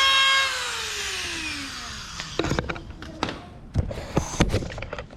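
A high-speed power tool's motor whines at a steady high pitch, then winds down after switch-off about half a second in, its pitch falling as it coasts to a stop. Several sharp knocks and clicks follow as the tool and parts are handled.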